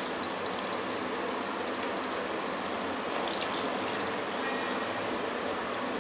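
Boiled neem-leaf water poured in a steady stream from a metal pot through a plastic tea strainer into a steel bowl, running and trickling evenly.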